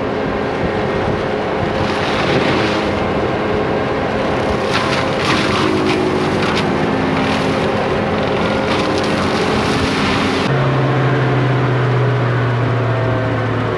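Forestry mulcher on a tracked excavator running under load, the engine droning steadily while the mulching head chews through trees, with sharp crackles and bursts now and then. About ten and a half seconds in, the sound changes abruptly to a steadier, lower engine hum.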